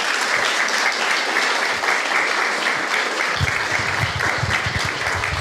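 Congregation applauding, a steady spread of many hands clapping, with some low thuds in the last couple of seconds.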